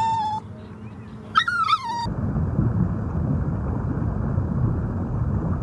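A cat meowing: one falling meow trails off at the start and a second meow comes about a second and a half in. After that comes a steady, low rumbling noise.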